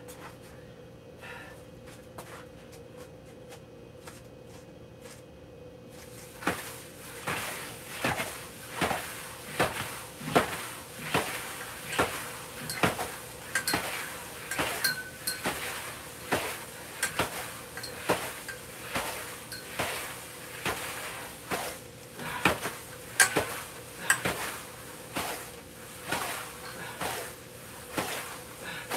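Heavy battle ropes slapping the floor in a steady rhythm, about one slap every three-quarters of a second, starting about six seconds in, during a bent-over rear-delt set.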